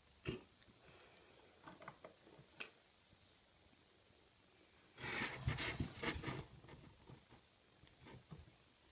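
Scattered short clicks and rustling as a juvenile Australian magpie snaps at food offered on metal tweezers and shifts about on the towels of its box, with a denser burst of rustling about five seconds in.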